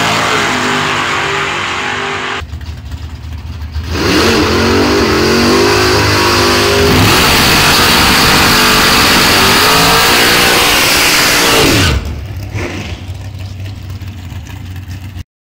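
Drag-racing car engine: a loud run tapers off to a low rumble, then the engine revs hard with the pitch sweeping up about four seconds in and again about three seconds later, like gear changes, and holds at full throttle until the pitch and level drop away about twelve seconds in. The sound cuts off suddenly just before the end.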